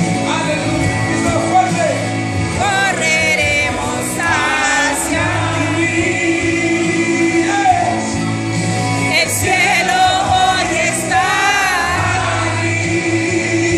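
Live gospel worship music: a lead voice singing over held keyboard-like chords, with the congregation singing along.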